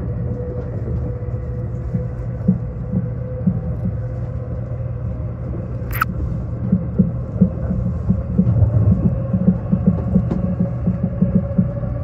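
Running noise of a limited express train heard from inside the carriage: a steady low rumble with a faint steady tone that rises slightly. Wheels beat out short rhythmic clacks over the rail joints, busier in the second half, and one brief sharp high squeak comes about halfway.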